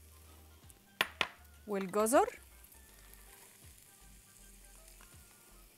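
Butter and chopped green onion quietly sizzling in a frying pan, with two sharp clicks about a second in.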